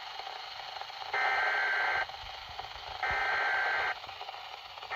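Weather alert radio sounding its alert beep: two steady, high-pitched tones about a second long and two seconds apart, with a third starting at the end, over faint radio hiss.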